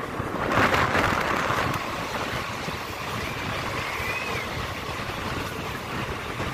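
Steady running rumble and rush of a DEMU passenger train, heard from inside the coach at an open window. The rushing noise surges louder about half a second in and eases back after about a second.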